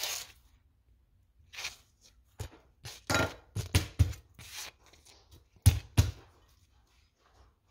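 Chef's knife chopping onion on a plastic cutting board, with knocks and short scrapes of the blade on the board: a few scattered knocks, a quick run of them in the middle, and the two loudest close together near the end.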